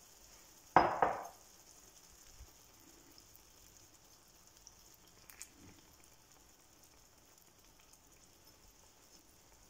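Egg-and-potato mixture sizzling faintly in a frying pan while a spoon spreads it, with one sharp knock about a second in.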